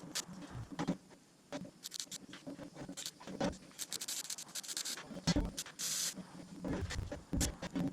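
Irregular clicks, taps and scrapes of things being handled, with a brief hiss about six seconds in.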